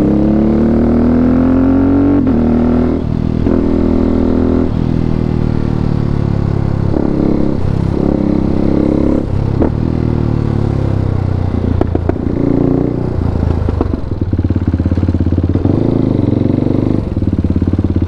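KTM RC 390's single-cylinder engine through a full Akrapovic exhaust, revving up and shifting through the gears over the first few seconds. It then rides on at varying revs, dropping to a choppier low-rev beat near the end.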